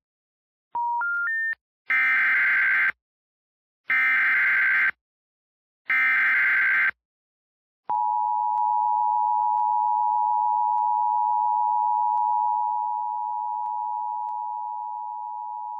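Emergency Alert System alert opening on a radio receiver: three short rising beeps, then the three one-second bursts of the digital SAME header, a shrill warbling data screech, then the long steady attention tone. The tone holds for about eight seconds and drops a little in level near the end.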